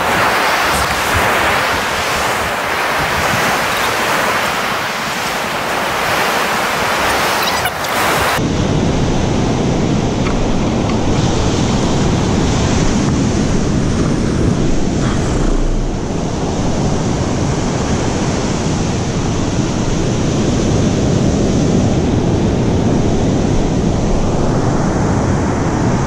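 Ocean surf breaking on a beach, with wind rumbling on the microphone. The sound changes abruptly about eight seconds in, from a bright hiss to a heavier low rumble.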